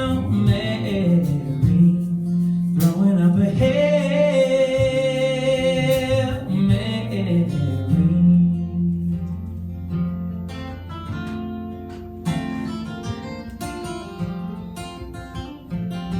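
A singer holds out the last long notes of a song over acoustic guitar. About halfway through the voice stops and the acoustic guitar plays on alone, picking single notes that lead into the next song.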